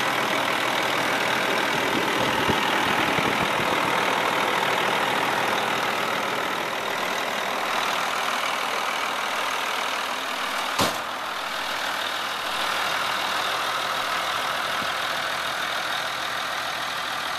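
1997 International dump truck's diesel engine idling steadily, with one sharp click about eleven seconds in.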